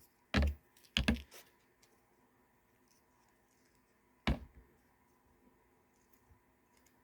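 A few sharp clicks and knocks from handling a USB charging cable and a tablet: one about half a second in, a quick pair about a second in, and one more just past four seconds in.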